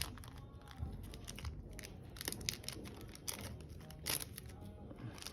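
Crinkling and rustling of a foil trading-card booster pack wrapper and cards being handled, in short irregular bursts, the loudest about two, three and four seconds in.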